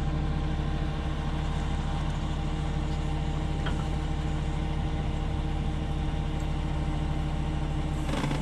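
A machine running steadily with an even, unchanging hum and low rumble; a faint tick about three and a half seconds in.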